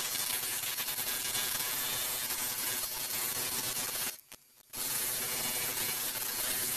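Proxxon scroll saw running, its fine blade cutting thin plywood with a steady buzz and hiss. The sound drops out for about half a second a little after four seconds in.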